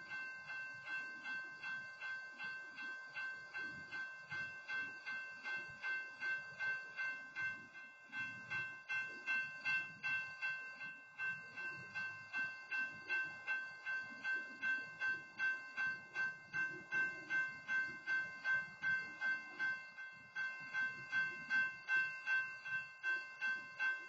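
Railroad grade-crossing warning bell ringing steadily at about two strikes a second, kept going because a stopped freight train is blocking the crossing. A faint uneven low rumble lies underneath.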